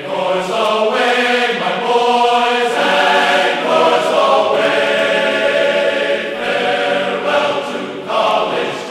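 Background music: a choir singing held chords that change every couple of seconds.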